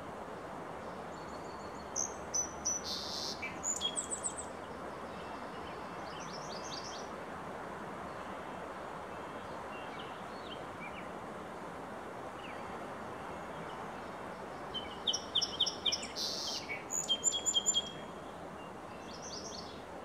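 Song sparrow singing two songs, one a couple of seconds in and another about three-quarters of the way through. Each is a quick run of clear notes and trills with a buzzy note in the middle, heard over a steady background hiss.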